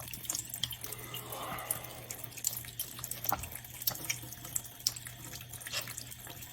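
Running water, with many short sharp clicks over it and a steady low hum.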